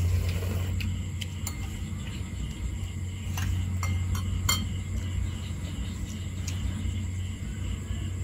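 Metal spoons clinking against ceramic bowls several times, mostly in the first half, over a steady low hum.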